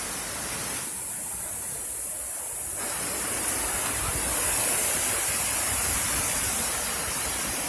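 Steady rain and wind, a continuous hiss that swells slightly about halfway through.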